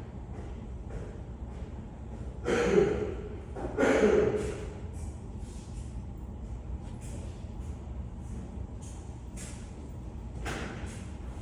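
Two loud, harsh bursts from a person's throat, a little over a second apart, with a fainter one near the end.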